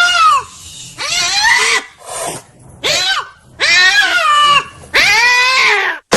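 A dog's complaining vocal calls, about six drawn-out whining howls, each rising then falling in pitch, from a dog angry at being kept from its ice cream.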